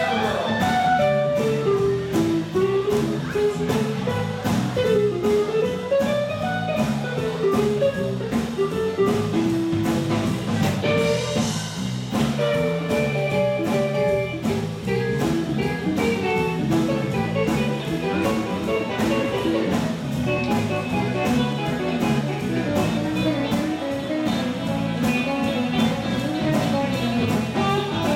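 Live swing band playing a jazzy blues number: a steady drum-kit beat under an electric guitar lead line, with no singing.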